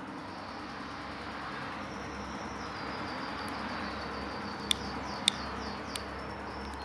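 Steady outdoor background noise, with a rapid run of short high chirps through the middle and three sharp clicks about five, five and a half, and six seconds in.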